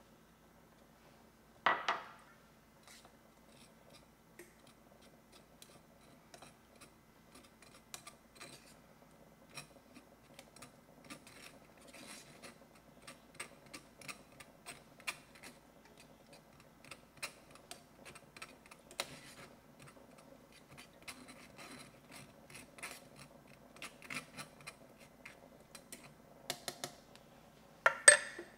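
A metal fork scraping and tapping inside a small wire-mesh strainer, pressing lumps of a flour slurry through the mesh, with many small scrapes and clicks. A louder clink of metal on the pot comes about two seconds in and again near the end.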